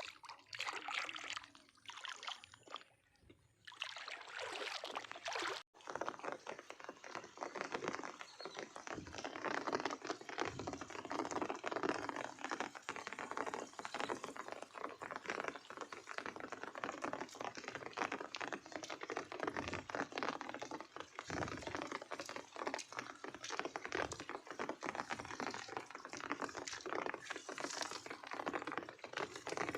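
Running water splashing steadily with many small splashes and trickles. There is a brief lull a few seconds in and a sudden break soon after.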